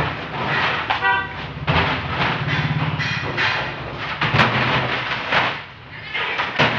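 Empty plastic water containers knocking against each other and the truck's cargo floor as they are stacked, with sharp knocks every second or so. A brief high tone sounds about a second in, over a steady low hum.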